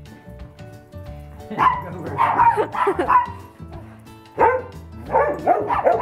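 Dogs barking in two bursts of short calls, the first about a second and a half in and the second around four and a half seconds in, over background music.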